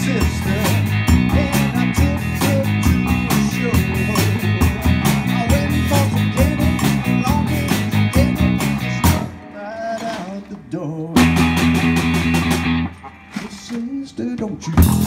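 Live rock band with electric guitars, bass and drums playing an instrumental break. About nine seconds in, the drums and bass drop out, leaving bending lead-guitar notes. A held full-band chord follows, then another sparse guitar passage, and the whole band comes back in near the end.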